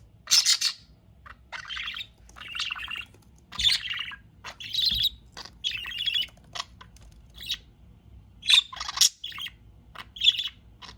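Pet budgerigars chirping and chattering in short, irregular calls, one after another.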